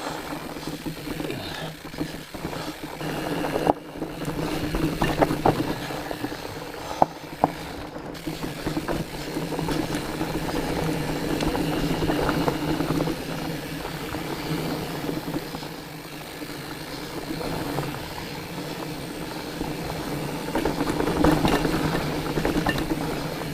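Fat bike ridden over a rooty trail: wide knobby tyres rolling and the drivetrain rattling, with a few sharp knocks about four to seven seconds in.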